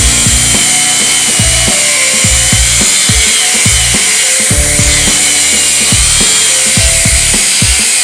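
Background music with a steady drum beat and held synth-like notes. A high, wavering whine and hiss runs underneath it.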